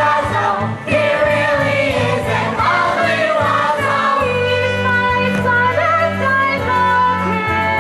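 Show tune sung by stage voices in chorus with instrumental accompaniment; from about four seconds in the voices hold long notes over sustained low chords.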